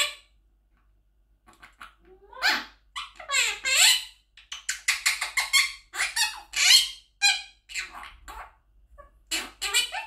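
Monk parakeet (Quaker parrot) making a run of squeaky calls and kissing sounds, beginning about a second and a half in, with falling whistled glides about three seconds in and a last short burst near the end.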